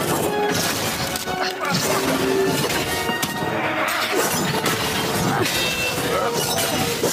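Film fight-scene soundtrack: dramatic music under a rapid run of hits, clangs and shattering crashes, with a few short grunts of effort.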